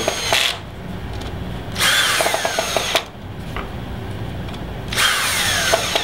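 Cordless drill driving wheel-cover screws into an RC dirt-bike wheel in short bursts about every three seconds. Each burst opens with a motor whine that falls in pitch, and a brief rapid clicking comes from the drill's clutch engaging, set light so the screws don't strip.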